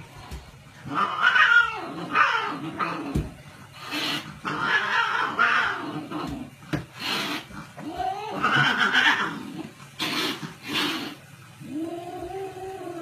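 Cat hissing and growling at a dog in repeated bursts, ending with a drawn-out yowl.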